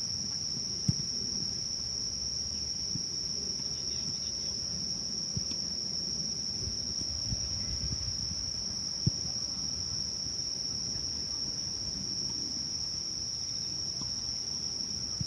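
Insects, crickets or similar, trilling in one steady unbroken high-pitched drone, over a low rumble with a few sharp knocks, one about a second in and one about nine seconds in.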